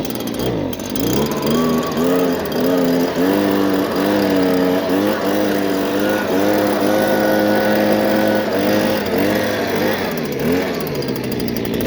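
A small motor running, its pitch repeatedly rising and falling as the speed changes, holding steady for a few seconds midway.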